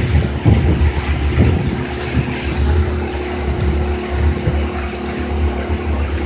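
Small motorboat's engine running steadily under way, with water rushing along the hull and wind buffeting the microphone. A higher hiss joins about two and a half seconds in.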